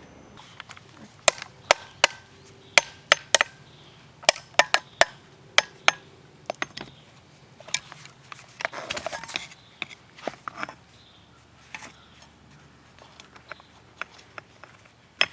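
Sharp clicks and knocks from an ECM blower motor and its parts being handled and turned over during inspection, with a brief scraping rustle about nine seconds in.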